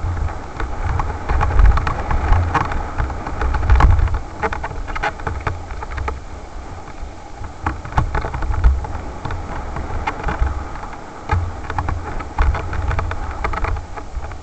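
Wind rumbling on a helmet camera's microphone, with an irregular clatter of knocks and rattles from a mountain bike riding fast down a rough, stony dirt trail.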